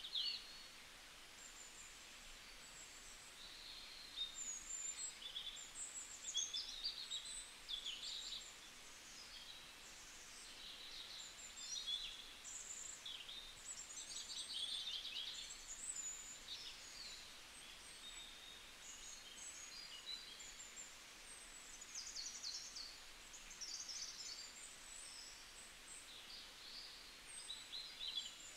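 Small birds chirping and twittering: many short, high calls overlapping throughout, faint over a low background hiss.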